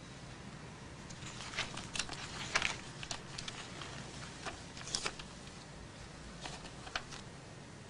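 Quiet room tone with faint, scattered rustles and soft taps coming irregularly, loudest about two and a half seconds and five seconds in.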